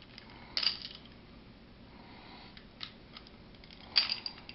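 Steel parts of a GI-style 1911 pistol clacking as the slide is worked off the frame during field-stripping. A sharp metallic clack comes about half a second in, a light click near three seconds, and the loudest clack at about four seconds.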